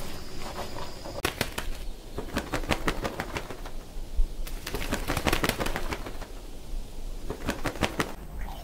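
Sparrowhawk chicks flapping their wings in the nest: several bouts of quick, fluttering wingbeats, starting about a second in.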